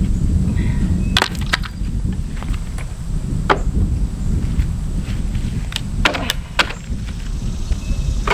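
Pallet boards being pried off their stringers with a pallet buster: a handful of sharp cracks as wood and nails give way, over a steady low wind rumble on the microphone.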